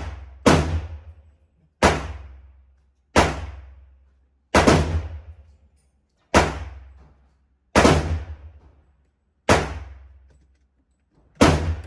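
7.62x39 AR pistol fired in slow single shots, about eight in all and roughly one every one and a half seconds, each shot echoing away over about a second.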